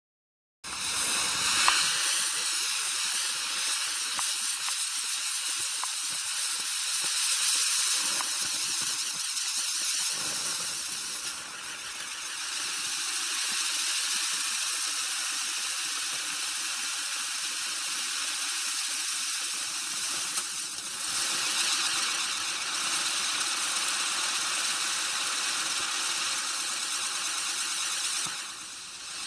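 Spinning wheel firework (Siberian Swirl Wheel) burning: a loud rushing hiss with a high, shrill steady tone that starts abruptly. It dips briefly three times as its driver stages change over, the sparks turning from green to gold.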